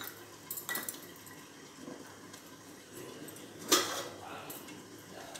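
A few light metallic clinks and knocks of steel kitchen vessels, the sharpest and loudest a little before four seconds in, with a short ring after it, over a faint background hiss.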